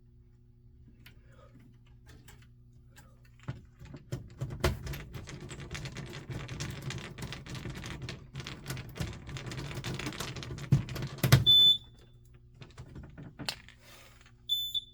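Rapid clicking and rattling for several seconds as the DSC alarm panel's case-ground wiring is worked by hand, over a low steady hum. Then two short high beeps from the panel's keypad, about three seconds apart, a trouble warning that the owner reads as a ground fault.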